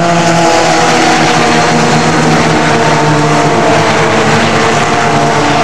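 A pack of Ginetta G20 race cars accelerating together at high revs, many engines blending into one loud, steady sound.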